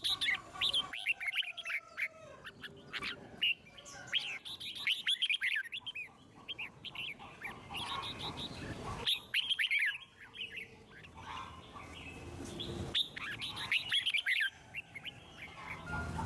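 Red-whiskered bulbul singing: phrases of quick notes sliding up and down, repeated with short pauses between them.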